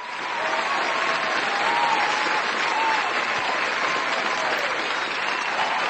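Audience applauding steadily, a dense clatter of many hands clapping, with a few faint voices calling out over it.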